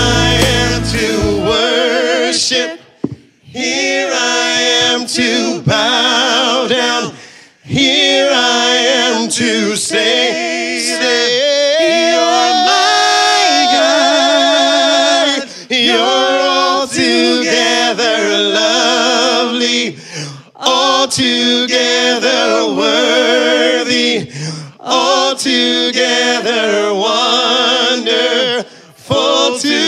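Worship song sung a cappella by several voices in harmony, without instruments, with short breaks between phrases.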